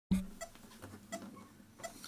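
Camera handling noise: a sharp knock right at the start, then a few light taps and scratches about every half second as a hand settles the camera.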